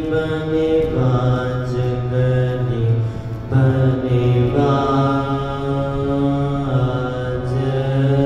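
Harmoniums playing an instrumental passage of a kirtan melody: held reed notes and chords that shift every second or two.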